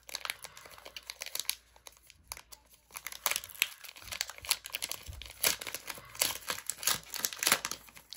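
Foil wrapper of a Pokémon booster pack crinkling and tearing as it is opened, in a run of irregular crackles that grows busier about three seconds in.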